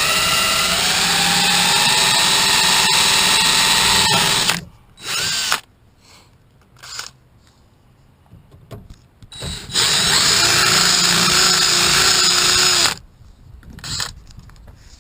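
Electric drill with a 3/16-inch bit drilling out a door-handle rivet. It runs for about four and a half seconds, its pitch rising at first, then stops, gives a short burst, and after a few seconds of small handling clicks runs again for about three seconds.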